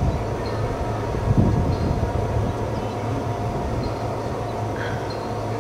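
Steady city background hum: a constant mechanical drone, low with a couple of steady higher tones over it, and a brief louder low rumble about a second in.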